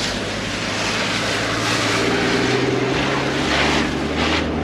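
Toyota Land Cruiser HZJ79's six-cylinder diesel engine pulling the truck through a muddy water hole, with water splashing against the vehicle in several surges, the strongest near the end.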